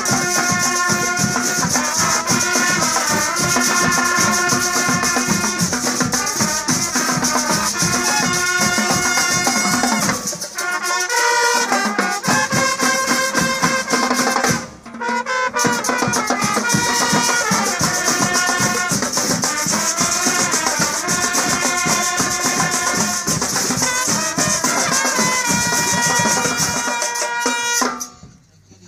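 Marching band playing a tune, led by many trumpets in unison over snare and bass drums. The playing breaks off briefly about fifteen seconds in and stops near the end.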